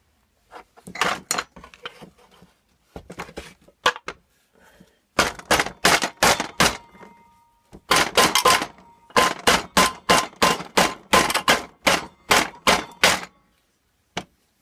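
Repeated sharp blows struck on the crankcase cover of a 1977 Briggs & Stratton engine to break it loose from the block. A few scattered knocks come first, then a steady run of about two to three blows a second with a faint metallic ring. The cover is stuck and does not come free.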